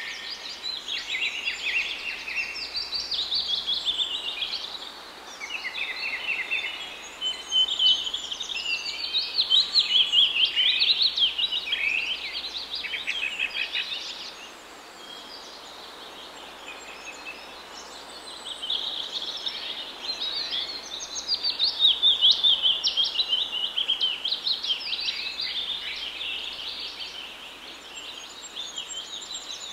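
Several small birds chirping and singing at once, a dense chatter of rapid high notes. It thins out for a few seconds about halfway through, then picks up again.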